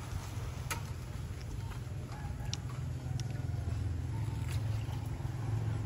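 Faint clucking of chickens over a steady low hum, with a few light knocks.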